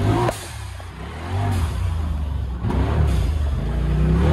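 Polaris RZR Pro XP Turbo side-by-side's turbocharged twin-cylinder engine revving up and down under throttle. It eases off just after the start, then builds steadily louder toward the end.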